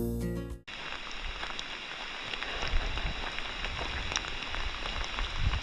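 A strummed acoustic guitar cuts off about half a second in, then steady rain falls, with scattered faint drop ticks.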